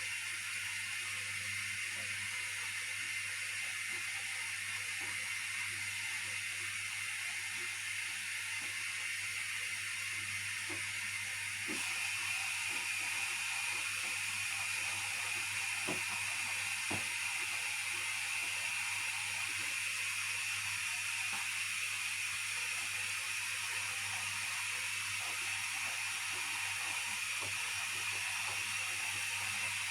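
Hotpoint Aquarius washing machine running: a steady hiss over a low hum, with faint scattered clicks. The hiss gets a little louder about twelve seconds in.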